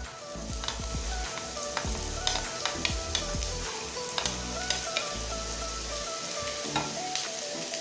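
Chopped onions sizzling as they go into hot coconut oil in a frying pan, a steady frying hiss with scattered light clicks.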